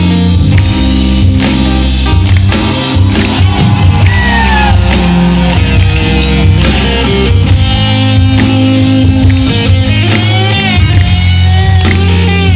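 A rock band playing loudly, with guitar, heavy bass and drum hits, and a voice holding long notes that slide in pitch.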